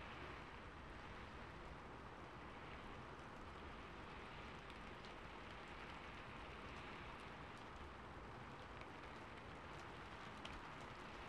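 Faint, steady rain-on-a-rooftop ambience recording: an even hiss of rain with scattered light drop ticks.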